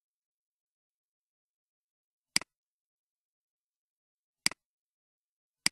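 Computer mouse button clicking three times, a couple of seconds apart, each click a sharp press followed at once by its release.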